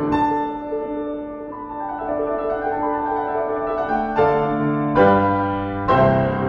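Solo piano playing a slow classical passage of held notes, with fuller chords struck about four, five and six seconds in.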